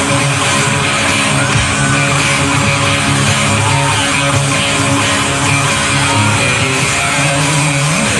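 Live rock band playing an instrumental passage built on a strummed electric guitar riff, ahead of the vocals, heard through the lead singer's stage-monitor mix.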